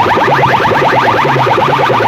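Large speaker-box sound system playing loud electronic chirps in a fast, even train, about twelve short rising sweeps a second, over a low pulsing hum.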